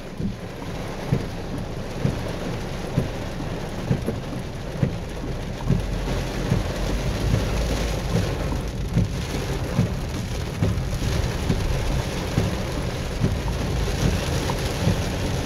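Heavy tropical rain pouring steadily, with scattered taps of nearby drops; about six seconds in a deep rumble of thunder swells under it and carries on.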